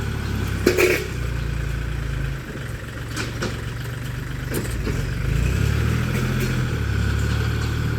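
Tractor engine running steadily, its level dipping and rising as the load changes, while it ploughs soil. A short sharp sound under a second in and a few faint knocks.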